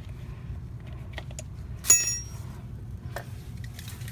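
Small metal tools clinking as they are handled, with one sharp, ringing metallic clink about two seconds in, over a steady low hum.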